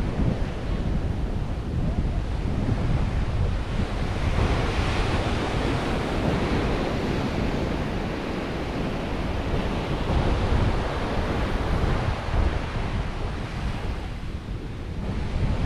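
Ocean surf breaking and washing up a beach, with wind buffeting the microphone; a wave swells louder about four seconds in.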